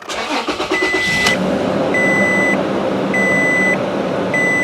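Toyota Tacoma engine starting and then idling, heard from inside the cab, while a dashboard warning chime beeps four times at an even pace, about once a second.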